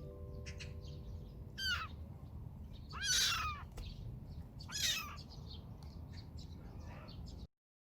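Kitten meowing three times: two short high calls and a longer, louder one between them.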